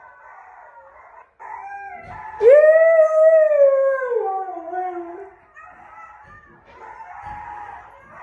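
Husky howling along with a recording of a wolf pack's howling chorus. One loud, long howl starts about two and a half seconds in, rises quickly, then glides slowly down over several fainter overlapping howls.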